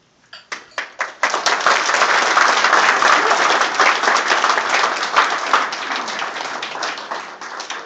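Audience applauding: a few scattered claps at first, swelling into full applause within about a second, then slowly thinning toward the end.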